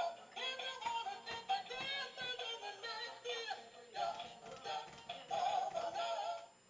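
Battery-powered singing and dancing plush toy playing a sung tune through its small speaker; the song cuts off suddenly near the end.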